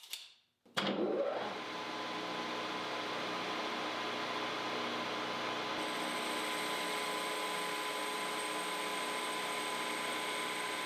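JMT 360x1000 engine lathe starting up suddenly about a second in, then running steadily with a mechanical whine of several steady tones. About halfway through, as the tool starts turning a metal bar and throwing chips, a high thin whine joins in.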